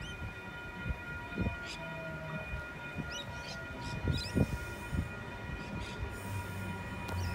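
Electric H-set (Oscar) suburban train approaching along the track, a low rumble that grows heavier in the last second or so as it draws near.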